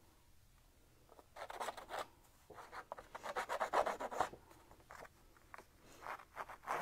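Small hand distressing tool scraping along the edge of a sheet of cardstock in quick repeated strokes, roughing up the straight cut edge. It comes in three short bouts, the longest in the middle.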